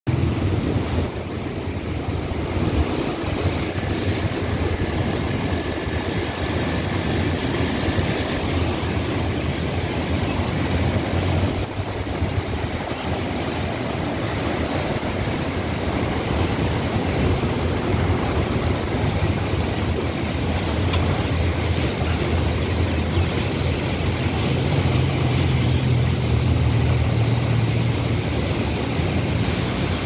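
Turbulent canal water rushing and churning below a canal fall, a steady loud wash of water noise with a low rumble.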